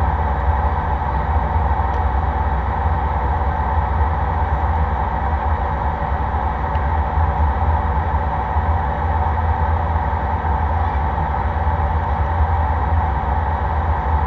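Steady in-flight cabin noise of an Airbus A319: a deep, even rumble of the jet engines and rushing air heard through the cabin wall, unchanging throughout.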